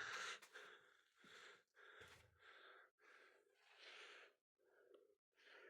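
Near silence with a string of faint breaths from a person.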